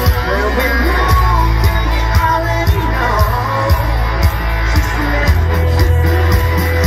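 Live band playing loud through a hall PA: a man singing over a drum kit beating about two strokes a second, with heavy bass.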